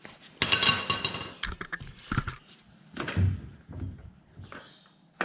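Handling of tools and hardware: a short metallic clatter with a ringing tone, a few sharp knocks, then two dull thuds a little over halfway through.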